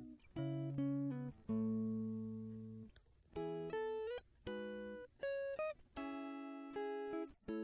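Background music: plucked guitar notes and chords, each struck sharply and left to ring and fade, a new one every second or so.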